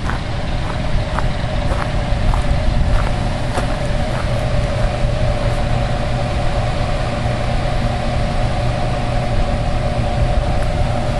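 Water pouring over a hydroelectric dam's spillway, a deep steady rumble with a steady hum over it. Footsteps crunch on gravel a few times in the first few seconds.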